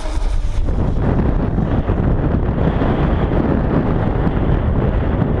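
Wind buffeting the microphone: a loud, gusty rumble that sets in under a second in.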